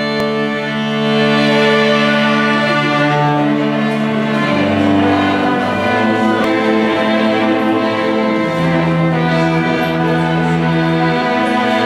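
A small string ensemble playing slow, long-held bowed chords, the harmony shifting about four and a half seconds in and again near eight and a half seconds.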